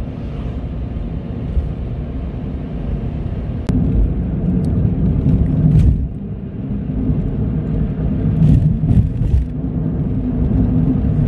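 A car driving at speed: a steady low rumble of road and engine noise, with a few faint clicks scattered through it.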